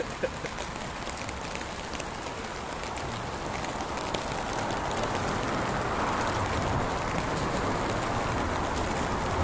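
Steady rain falling on a wet street, an even hiss that grows a little louder about halfway through.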